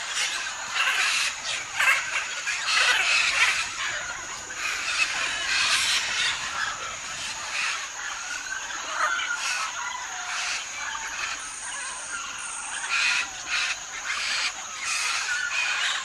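A large mixed flock of parrots and macaws calling all at once: a continuous, overlapping chorus of harsh calls with no pause.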